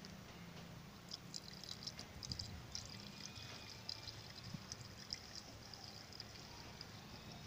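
Engine flush poured from a can into the oil filler opening of a Toyota 2KD-FTV diesel engine: a faint trickle with irregular splashes, starting about a second in. The flush goes in ahead of an oil change to clean out the engine.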